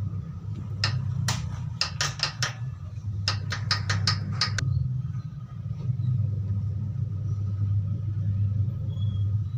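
Sharp metallic taps of a hammer on metal, in two quick clusters in the first half, over a steady low rumble that runs on after the tapping stops.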